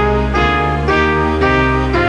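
Brass band music: sustained chords in a slow, even march, moving to a new chord about every half second.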